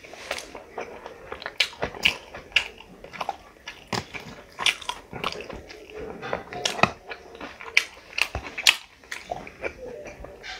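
Close-miked eating: chewing and lip smacks in quick, irregular sharp clicks, with a whole curried chicken being pulled apart by hand.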